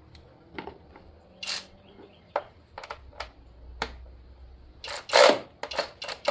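Irregular clicks and clanks of hand tools working on the ignition coil's hold-down bolt, with a louder cluster of rattles about five seconds in.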